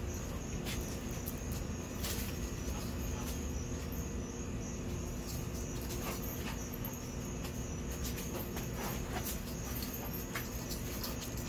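Crickets chirping in a steady high trill over a low, even rumble, with scattered sharp clicks and taps.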